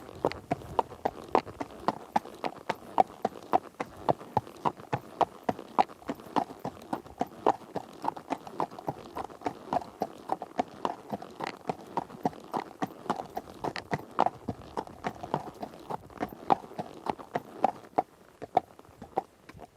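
Horse hooves clip-clopping in a steady rhythm, a few sharp hoofbeats a second, thinning out and fading near the end.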